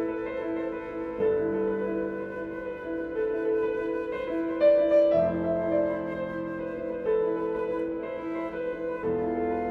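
Flute and piano playing a contemporary classical duet: the piano keeps up a rippling repeated figure with a new low bass note about every four seconds, while the flute plays a sustained melody above it.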